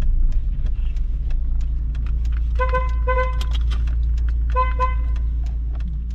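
A car horn tooting three times, two quick toots and then one more, over a steady low engine idle, heard from inside the car's cabin.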